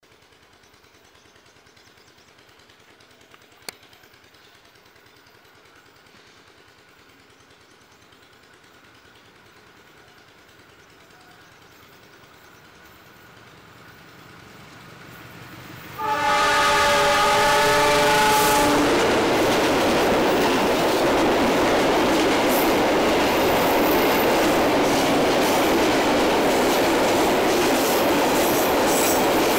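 GE CM20EMP diesel-electric locomotive approaching with a train of tank wagons: its running is faint at first and slowly grows louder. About halfway through it sounds its multi-tone horn for about three seconds as the sound jumps loud, and the tank wagons then roll past with a steady loud rumble and the clickety-clack of wheels over rail joints.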